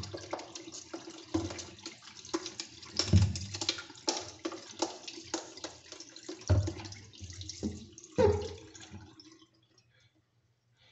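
Toothbrush scrubbing the plastic impeller well of a Fluval 306 canister filter's motor head with running water splashing in the sink, plus a few knocks as the housing is handled. The sound stops abruptly about a second before the end.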